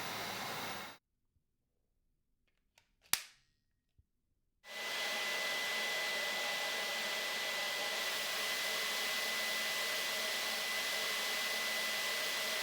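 Dyson V15 Detect cordless vacuum running, then cutting out about a second in; a few small clicks and one sharp click come in the silence about three seconds in. The vacuum then starts again and runs steadily with a high whine.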